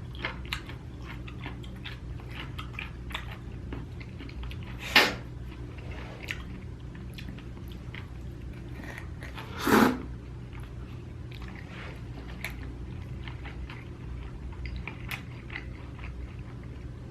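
Close-miked chewing and small wet mouth sounds of a person eating, with two louder mouth sounds about five and ten seconds in. A steady low hum lies underneath.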